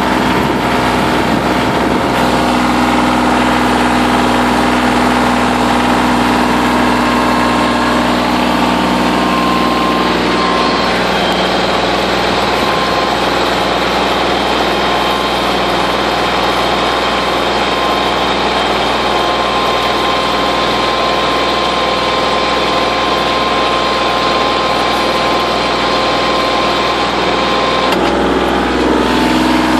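Kubota L2800 compact tractor's three-cylinder diesel engine running steadily under load while pulling a two-bottom plow through the soil.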